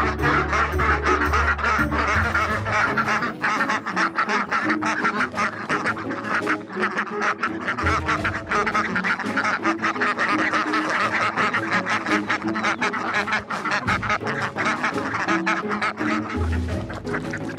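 A flock of runner ducks quacking close by, many short calls overlapping one another, with background music underneath.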